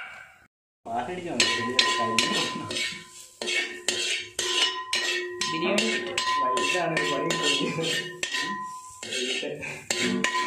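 A metal spoon scraping and knocking against a shallow metal pan while stirring, about two to three strokes a second, with the pan ringing under the strokes.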